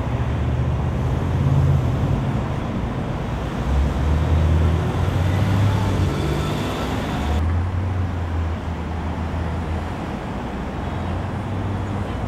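Road traffic on a busy city street: car engines running in slow-moving traffic, with a steady low engine hum. The sound changes abruptly about seven seconds in.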